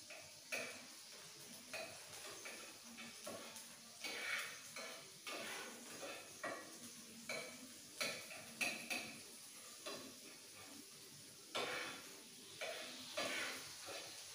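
Metal spatula stirring and scraping in a kadai, with irregular knocks and scrapes against the pan over a steady frying sizzle.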